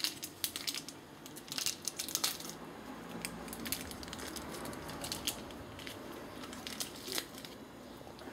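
Faint crinkling and crackling of a plastic instant-noodle seasoning sachet being handled and torn open, with scattered sharp clicks.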